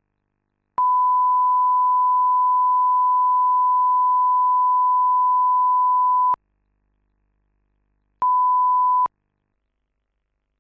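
Line-up test tone that accompanies colour bars at the head of a video tape: one steady beep lasting about five and a half seconds, then after a short gap a second beep of under a second.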